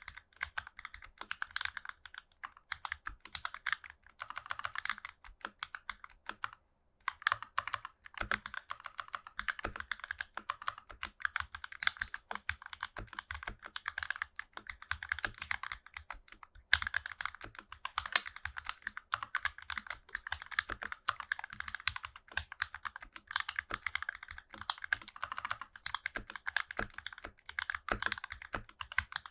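Continuous typing on an NK65 mechanical keyboard with Matrix Lab JWK FFF switches and GMK Nines keycaps: a dense run of key clacks, with a brief pause about seven seconds in.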